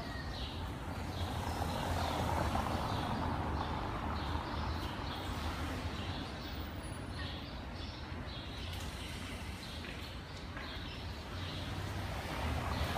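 City street traffic: a continuous wash of passing vehicle noise that swells as vehicles go by, about two seconds in and again near the end.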